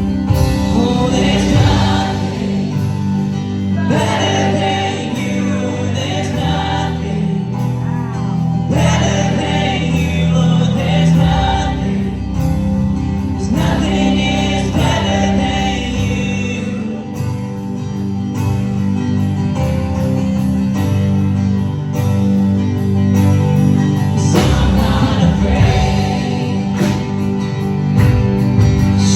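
Christian worship music with singing, a steady band and voices over it.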